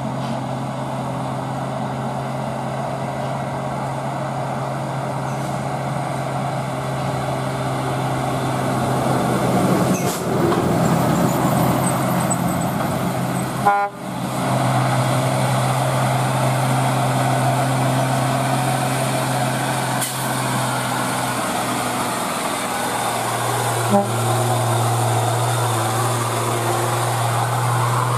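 Diesel engines of heavy dump trucks running under load on a steep climb, a continuous low drone that breaks off briefly about halfway through, with the engine note heavier in the second half as a rock-laden truck climbs past.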